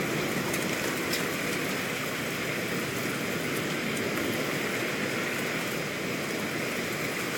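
Steady thunderstorm rain, an even hiss with a few faint ticks of single drops.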